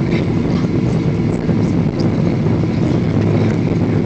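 Steady low rumble of an airliner's engines and rushing air, heard inside the passenger cabin during the descent to land.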